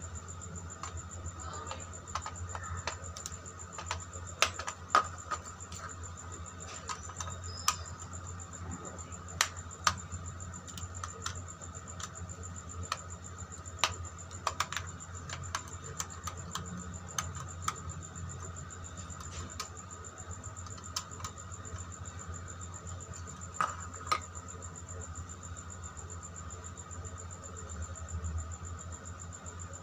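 Scattered sharp clicks and taps of a screwdriver and fingers working on a plastic switchboard as its terminal screws are tightened and wires fitted, over a steady low hum.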